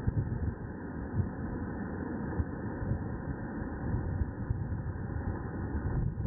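Strong wind buffeting the microphone in irregular gusts, a low rumbling noise.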